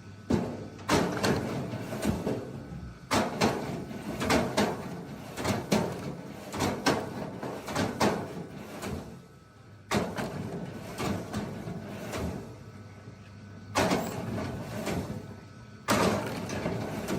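Hydraulic log splitter splitting wood: bursts of wood cracking and split pieces knocking and clattering down, each starting suddenly, about six times with short pauses between.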